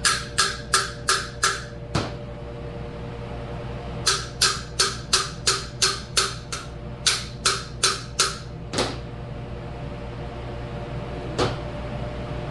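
Hammer tapping on hydraulic cylinder parts, working a tight-fitting gland or piston with its new seal into place. The taps come in quick runs of about three a second, separated by pauses of a couple of seconds, with a single knock now and then, over a steady workshop hum.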